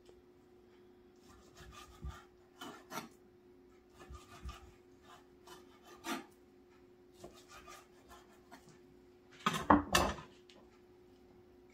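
Knife slicing raw steak on a wooden cutting board: small groups of short scraping strokes as the blade draws through the meat and touches the board, then a louder clatter of knocks near the end as the knife is laid down on the board. A faint steady hum runs underneath.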